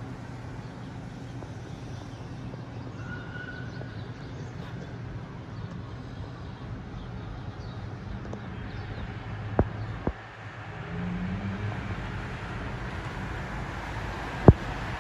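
Steady hum of distant city traffic, broken by a few sharp clicks, the loudest near the end.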